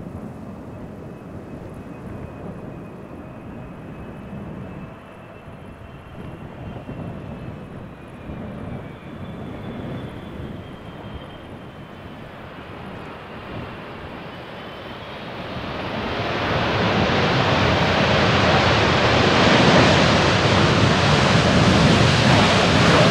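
Jet airliner on landing approach: a distant engine rumble with a faint high whine that slowly falls in pitch, then a steady build about two-thirds of the way through into a loud jet roar that stays loud to the end.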